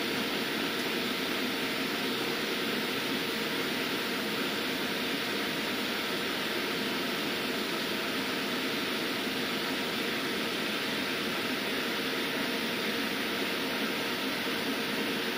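EMotorWerks SmartCharge-12000 EV charger running under load while charging a battery at about 23 amps. It gives a steady rushing noise with a faint steady hum.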